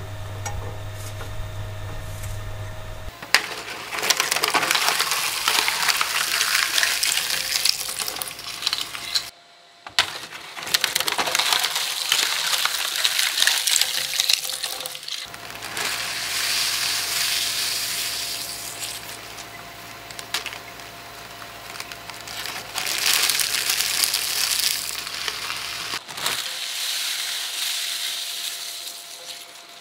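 Twin-shaft shredder's steel cutter blades running with a steady motor hum while they grind crunchy snack foods, giving dense crackling and crunching. The crunching comes in several separate spells that start and stop abruptly, with a short gap about nine seconds in.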